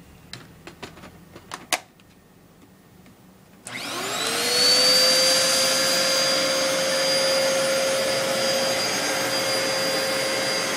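A few sharp clicks as the vacuum is handled, then a Dyson upright vacuum cleaner switched on about three and a half seconds in. Its motor whine rises quickly and settles into a steady run, drawing full airflow with both its foam filter and HEPA filter removed.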